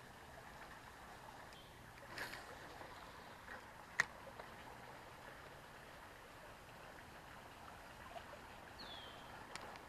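Quiet outdoor pond-bank ambience with a faint steady hiss. A single sharp click comes about four seconds in, and a short falling chirp comes near the end.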